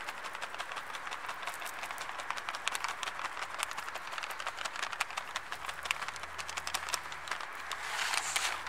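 Hazelnut brittle shaken out of a plastic packet: a dense run of small rattling clicks as the crumbs fall, with the packet crinkling and a louder rustle near the end.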